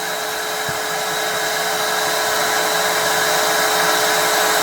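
Bee vacuum's motor running steadily with a constant whine, slowly getting a little louder.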